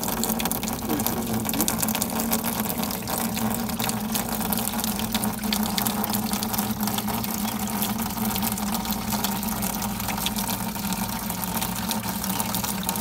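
Water gushing from a pipe into a plastic trough, splashing steadily as it fills, over a steady low hum.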